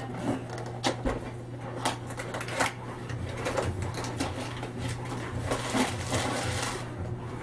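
Cardboard packaging being handled: a few sharp knocks and scrapes as a cardboard sleeve is lifted out of its shipping box, then a longer stretch of crinkling plastic wrap as a plastic-wrapped light stand is slid out of the sleeve.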